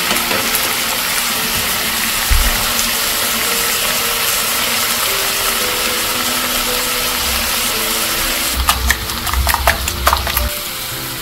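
Zucchini and onion slices sizzling steadily in oil in a frying pan. Near the end, a wire whisk clicks rapidly against a glass bowl as eggs are beaten.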